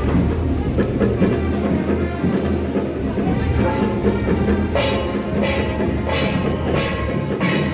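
Music with drums and pitched instruments, joined about halfway in by regular sharp percussive crashes.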